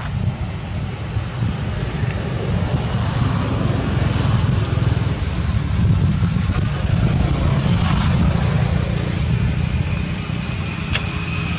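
A steady low rumble with an even hiss over it, with no clear rhythm or pitch.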